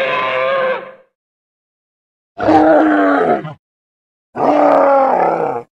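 Animal or creature vocal sound effects: a pitched call that cuts off about a second in, followed after a silent gap by two separate grunting calls, each lasting about a second.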